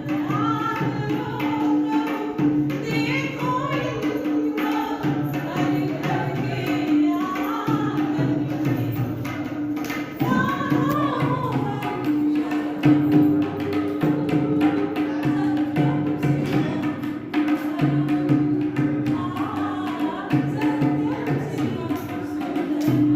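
A singer performing a Hindi song, accompanied by a steady held drone note and tabla-like hand-drum strokes.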